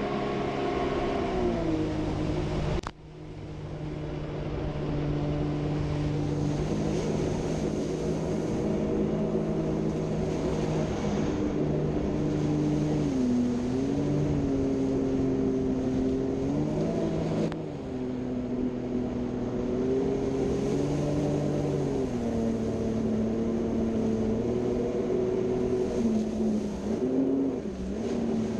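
Jet ski engine running under way, its pitch rising and falling as the throttle is eased and opened. The sound drops out abruptly about three seconds in, then swells back.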